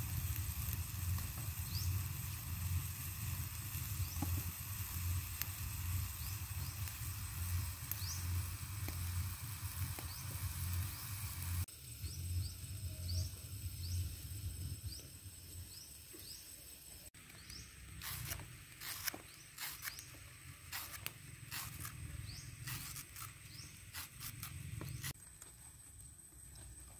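Outdoor ambience with short rising chirps every second or two over a steady high whine. In the latter part comes a run of sharp clicks and snaps from a knife working through a bunch of green bananas.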